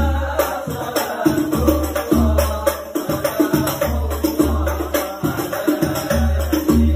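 A group of men singing an Islamic sholawat together to hadrah hand drums: a pair of deep bass booms about every two seconds under quicker, sharper drum strokes.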